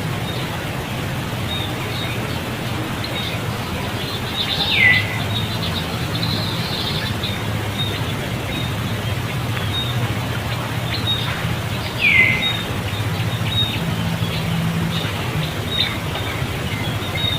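Two short, high calls that slide downward in pitch, about seven seconds apart, with faint scattered chirps and a steady low hum underneath.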